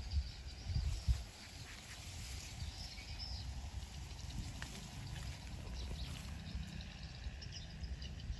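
Open-field ambience: wind rumbling on the microphone, with a few knocks near the start and faint high chirps throughout.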